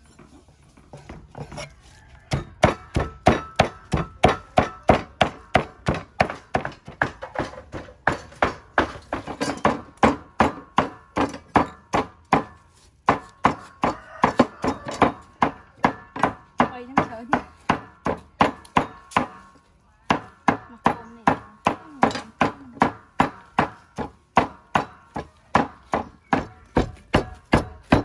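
Meat cleaver chopping raw pork on a wooden chopping block: a steady run of sharp knocks, about two to three a second, mincing the meat, with a short break about two-thirds of the way through.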